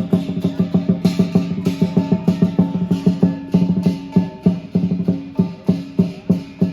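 Lion dance percussion: a big drum beaten in a fast, steady rhythm, about four to five strokes a second, with clashing cymbals and a gong crashing over it.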